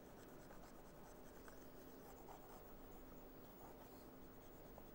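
Near silence: faint room tone with a steady low hum and a few faint scratches of a stylus on a pen tablet as annotations are wiped off a slide.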